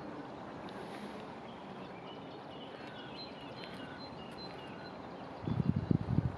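Outdoor ambience: a steady background hiss with faint, short birdsong chirps. Near the end, irregular low gusts of wind buffet the microphone.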